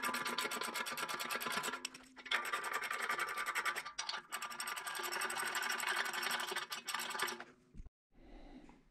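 Socket ratchet wrench clicking rapidly as bolts are run down into drop-in anchors in a concrete floor. It goes in three spells, with short pauses about two and four seconds in, and stops about seven and a half seconds in.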